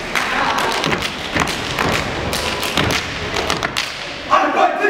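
Stepping: a quick, uneven run of foot stomps, hand claps and body slaps from a step routine. A performer's voice shouts near the end.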